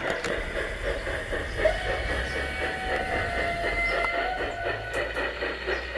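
Garden-railway model steam locomotive running with its coaches, a quick even beat over a steady low hum.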